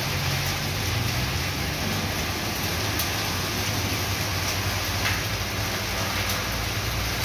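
Heavy rain coming down hard, a steady dense hiss with a low rumble underneath.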